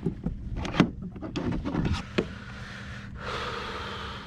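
Sharp knocks, taps and rubbing on a kayak while a freshly landed redfish is handled, then about a second of rushing hiss near the end.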